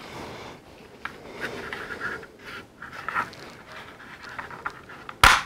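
Hard plastic toy parts being handled and fitted, with light clicks and rustling. A single loud, sharp click or knock near the end.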